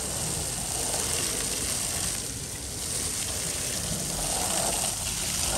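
Water spraying onto a vehicle as it is washed: a steady hiss.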